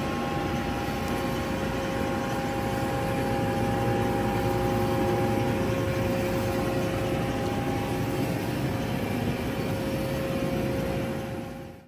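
1996 Hyd-Mech H-16A horizontal band saw running, a steady machine hum with several held tones, fading out near the end.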